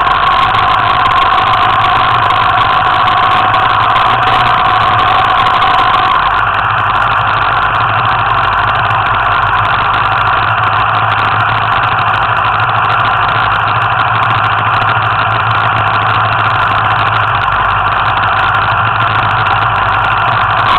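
Small scooter engine idling steadily; its tone shifts slightly about six seconds in.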